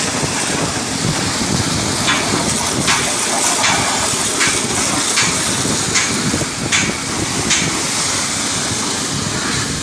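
A high-pressure water jet from a hand-held spray nozzle hissing steadily as it blasts a scooter's plastic body panels. From about two seconds in until near the end it is broken by a string of short, sharp cracks, roughly one a second.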